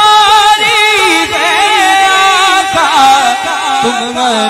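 A male naat reciter singing into a microphone: a long, wordless melismatic run with wavering, sliding ornaments on held notes. Low repeated beats sound underneath.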